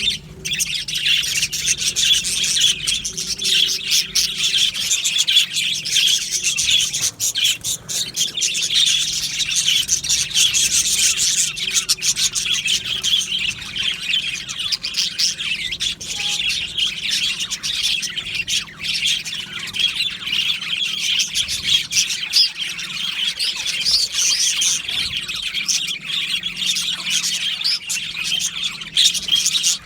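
A flock of budgerigars chattering continuously, many birds warbling, chirping and squawking at once.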